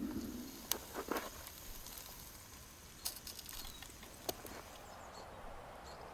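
A few sharp clicks or taps, about five in the first four and a half seconds, over a faint, steady outdoor background.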